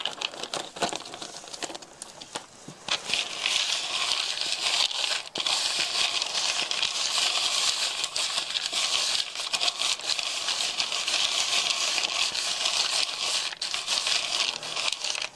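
Small hard pieces of cornstarch-coated spruce pitch being rubbed and stirred by hand in a perforated plastic colander, a steady crackling rustle as the excess cornstarch is sifted off. It starts softer with scattered clicks and fills out about three seconds in.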